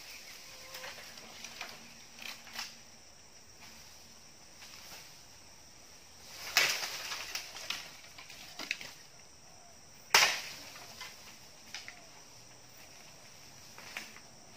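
Dry bamboo poles cracking and knocking together as a man hauls on them in a bamboo clump. There are two loud sharp cracks, about six and a half and ten seconds in, with lighter knocks scattered between.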